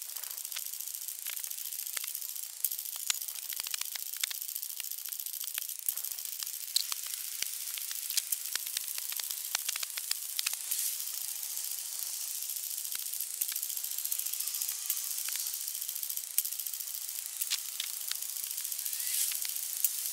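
Steady hiss with many irregular clicks and taps from a handheld camera jostled and rubbed as its holder runs.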